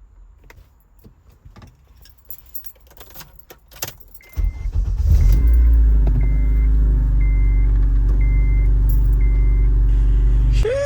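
Keys jangling and small clicks and rattles. About four seconds in, the 2008 Acura TSX's engine starts and runs steadily. Over it, a chime beeps about once a second, six times.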